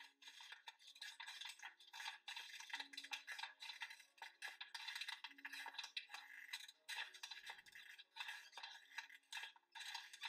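Quiet background music built on busy shaken, rattling percussion, with a low held note coming back every two to three seconds.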